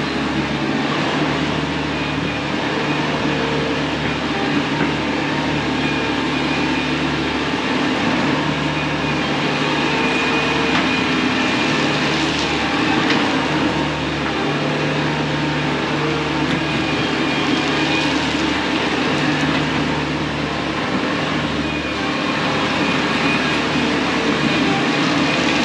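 Bobcat T630 compact track loader's diesel engine running steadily at working speed, its drone shifting slightly every few seconds as the machine works.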